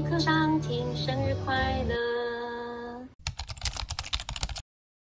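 A sung pop song fades out over the first three seconds. Then comes a run of rapid keyboard typing clicks for about a second and a half, cut off abruptly into silence.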